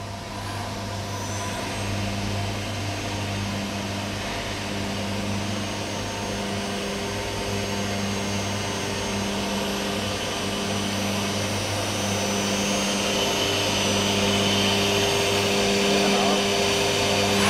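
Toyosk TSDT30 CNC drilling and tapping centre running under power: a steady electrical hum with higher whining tones over a hiss, and a mid-pitched tone that cuts in and out about once a second. The sound grows slowly louder and ends in a brief sharp burst.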